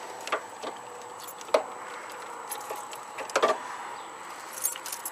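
Scattered light metallic clicks and clinks as jump-pack clamps and cables are handled against the tractor's metal, over a faint steady hum.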